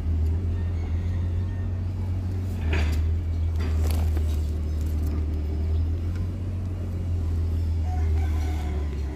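A steady low mechanical hum throughout, with a rooster crowing in the background and a few short clicks around three to four seconds in.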